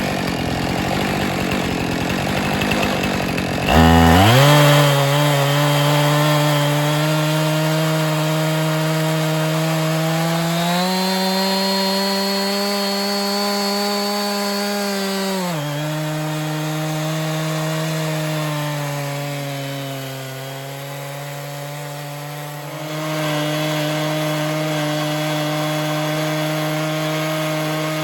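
Stihl chainsaw on an Alaskan chainsaw mill, ripping a white oak log lengthwise into slabs. It idles roughly at first, then revs up to full throttle about four seconds in and runs steadily in the cut, its throttle held open by a wrap. Its pitch rises, falls and sags a few times as the load changes with the crank feed.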